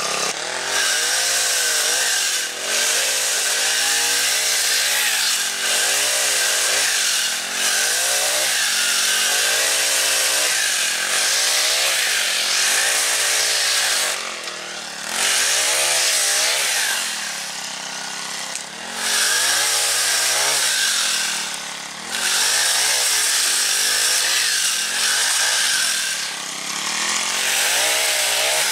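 Pole saw on a Honda GX50-copy four-stroke kombi engine cutting overhead tree branches: the single-cylinder engine revs up and down under load while the chain rasps through the wood. The engine drops back to a lower speed several times between cuts in the second half.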